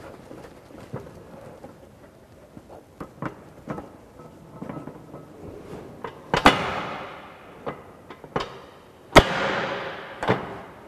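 Sheet-metal workpiece knocking and clanging against a manual bending machine as it is handled and set in place: a run of small metallic knocks, then two loud clangs about six and nine seconds in, each ringing out for a second or two.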